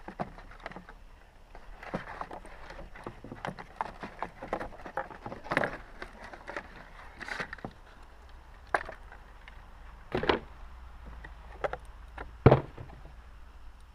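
Cardboard box and paper packaging being handled: rapid rustling, crinkling and light clicks as the insert and wrapping are pulled out, then a few separate sharp knocks, the loudest near the end.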